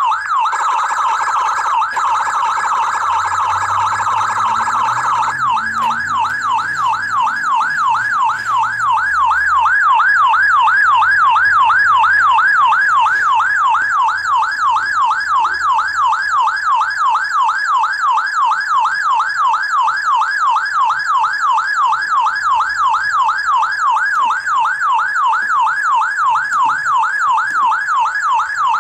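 Electronic police siren in a fast yelp, its pitch sweeping rapidly up and down. For roughly the first five seconds the cycle is quicker and blurred, then it settles into a regular, slightly slower up-and-down.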